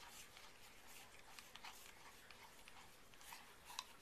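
Faint scraping and light irregular clicks of a spoon stirring a liquid cleanser against the sides of a glass measuring jug, with a sharper tap near the end.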